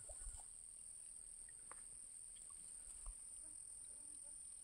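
Near silence: faint outdoor ambience with a steady high-pitched hiss and a few faint ticks.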